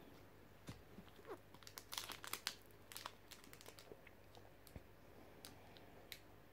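A Pokémon trading-card booster pack's foil wrapper crinkling and crackling as it is torn open by hand, faint, with the densest crackling about two seconds in.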